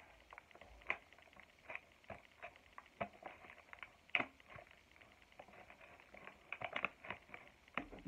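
Scissors snipping and crunching through thick layered cardboard and paper, in irregular sharp clicks and crackles, the loudest about a second in and again around four seconds in.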